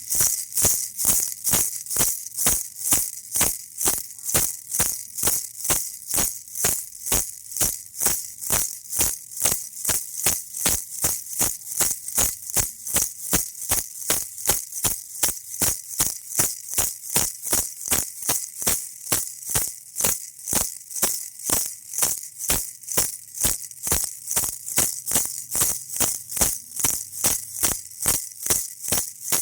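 Baby rattle toy shaken in a steady, even rhythm, about two to three shakes a second, each shake a crisp, hissy rattle of beads.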